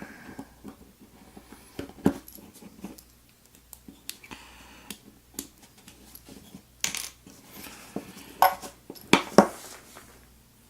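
Small metallic clicks and clinks as a partly dismantled American S1100 padlock is handled and locked shut. The clicks come singly and irregularly, with a run of sharper ones from about seven to nine and a half seconds in.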